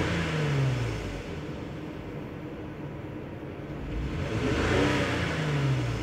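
2003 Lexus GS300 six-cylinder engine being revved with the throttle: the revs fall back to idle at the start, then climb again about four seconds in and drop back near the end. The engine is misfiring on cylinder 2 (codes P0300 and P0302) and hesitates under throttle.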